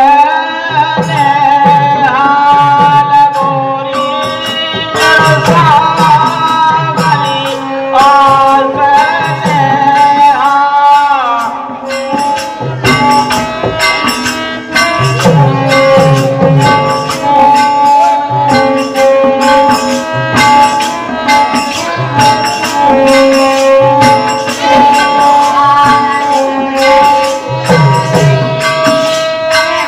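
Birha folk music: a harmonium holds a melody over repeated hand-drum beats and jingling small percussion. A sliding melody line rises and falls over roughly the first twelve seconds, then steady held harmonium notes carry on.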